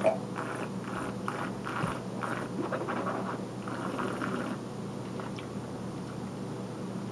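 A taster slurping and swishing a mouthful of red wine, drawing air through pursed lips in a run of short, irregular slurps over about four seconds. There is a short knock right at the start.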